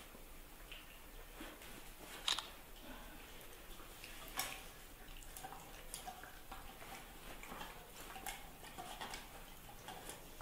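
Faint scattered taps and clicks of a puppy nosing a small plastic bottle around a tile floor, with a few sharper knocks about two, four and eight seconds in.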